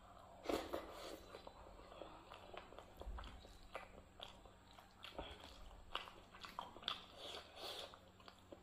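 Close-up eating sounds of a mouthful of rice and dal being chewed by hand-fed bites, with many small wet mouth clicks and smacks, and fingers squishing rice into the lentil curry on the plate.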